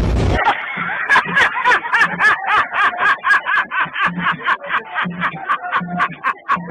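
A man laughing hysterically in quick, rhythmic bursts, about three to four a second, the sound muffled like a low-quality recording. A loud noise cuts off abruptly just before the laughter starts.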